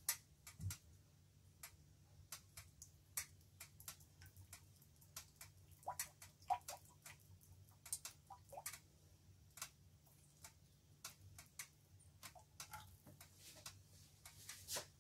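Hot frying oil in a wok crackling faintly, with small irregular pops and ticks, over a faint steady low hum.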